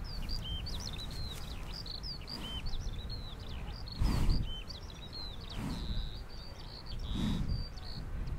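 Many small birds chirping in quick, rising and falling notes, over a low rumbling noise that swells several times, loudest about four seconds in.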